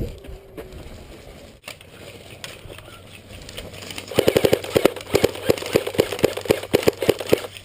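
Airsoft gun firing a rapid string of shots, about five a second, starting about four seconds in and running until near the end.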